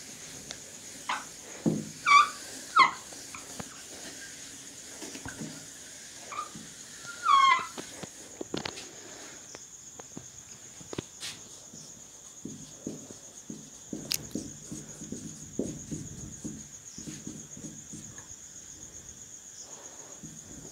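Whiteboard being wiped with a duster, with a few short squeaks falling in pitch about two seconds and seven seconds in. From about twelve seconds on, a marker scratches in short strokes as it writes on the whiteboard.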